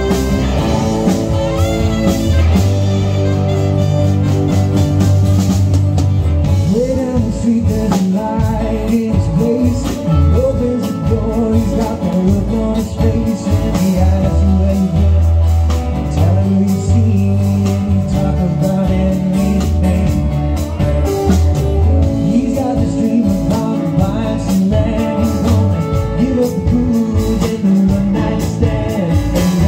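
Live band playing a song with drums, bass, electric guitar, keyboards and saxophones. A wavering lead melody comes in about a quarter of the way through.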